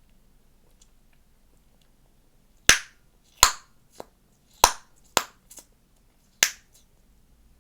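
Chewing gum popping loudly in the mouth: a run of sharp snaps, five loud and two softer, starting partway through and spaced about half a second to a second apart.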